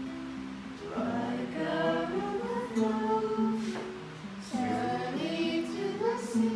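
Young girls singing together to a strummed acoustic guitar. The voices come in about a second in, break off briefly near the middle, and pick up again.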